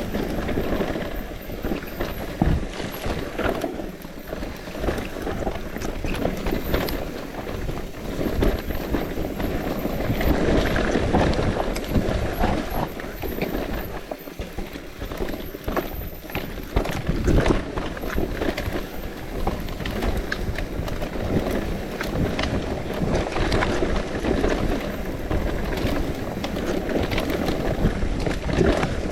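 Mountain bike rolling over rough, muddy dirt trail: a steady rumble of tyres on the ground, broken by frequent rattles and knocks from the bike.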